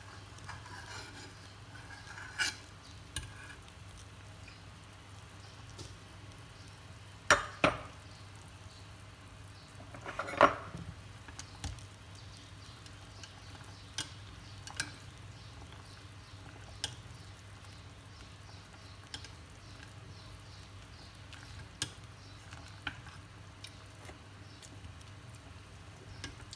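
Soup boiling in a stainless-steel pot while a metal spoon and wooden chopsticks stir it, knocking against the pot. The knocks come at scattered moments, loudest around seven and ten seconds in.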